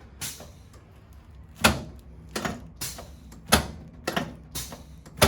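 A string of short knocks and rustles on a padded chiropractic treatment table as a person turns over onto their back and settles, about eight in all, three of them louder thumps.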